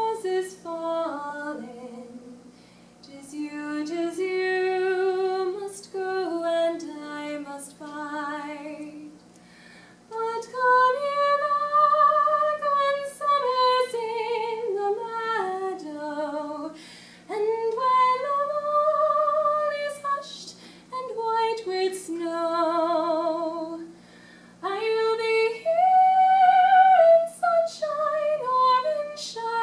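A woman singing a slow song unaccompanied, in long phrases of held notes with vibrato and short breaks for breath between them.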